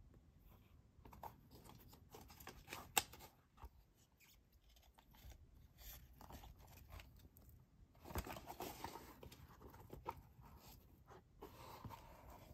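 Faint handling of a pair of Crocs Pollex foam clogs and their card hang tag: scattered light clicks and taps, one sharper click about three seconds in, and stretches of rubbing and rustling around eight seconds in and again near the end.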